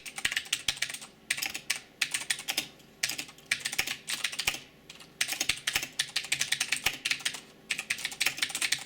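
Typing on a Rosewill RK-9100 mechanical keyboard with Cherry MX Blue switches: rapid clicky keystrokes in bursts with short pauses between them, with a high pinging sound.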